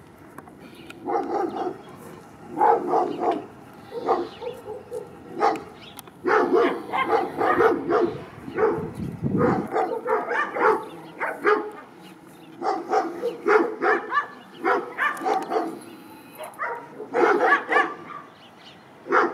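Dog barking repeatedly, in runs of short barks separated by brief pauses.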